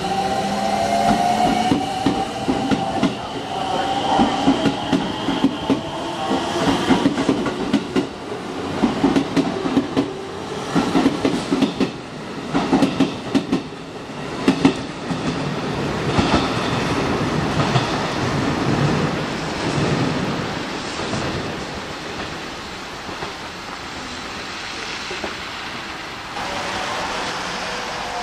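A train running on jointed track, its wheels clacking over the rail joints in quick clusters, with a whine over the first few seconds; after the clacking it settles into a steady rumble that eases off.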